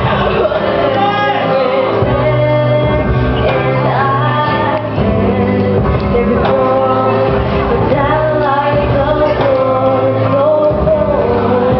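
A girl singing solo into a handheld microphone, amplified over recorded backing music with sustained low bass notes.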